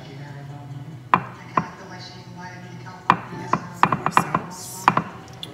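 Sharp knocks and clacks of kitchen utensils and cookware being handled: two spaced knocks, then a quick run of seven or so between about three and five seconds in.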